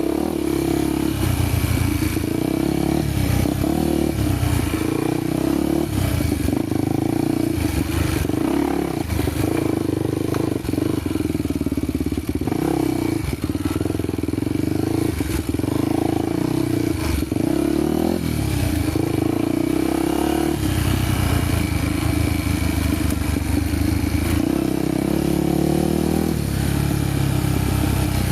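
Honda motorcycle engine running steadily on a dirt trail ride, its revs rising and falling, with scattered knocks and rattles from the bike over the trail.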